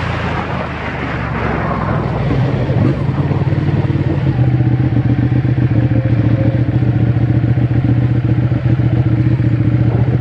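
Ducati Panigale's V-twin engine running at low, steady revs as the bike rolls slowly, heard close up from on the bike. A rush of wind noise fades out over the first two seconds, leaving the engine's pulsing beat.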